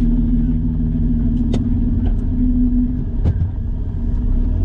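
Autozam AZ-1's mid-mounted 657 cc turbocharged three-cylinder engine idling with a steady drone, heard from inside the cabin. A couple of sharp clicks come about a second and a half and about three seconds in.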